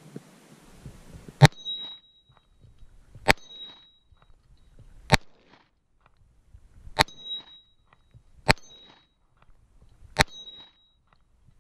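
A .45-calibre handgun fired six times at a steady pace, about one shot every two seconds. Each shot is followed by a short ringing clang from a hit on an AR-500 steel gong.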